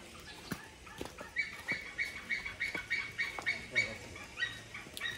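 A bird calling in a rapid series of short, even, high notes, about three or four a second, pausing briefly near the end and then starting again.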